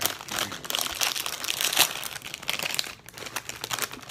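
Crinkling of a Doritos chip bag being handled: a dense, irregular run of crackles, loudest a little before halfway.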